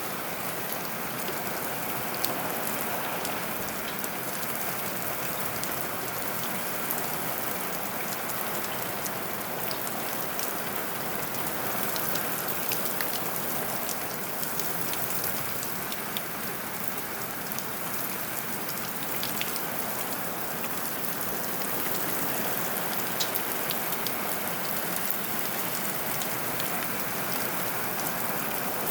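Heavy rain falling steadily, with many individual drops ticking sharply on a nearby surface.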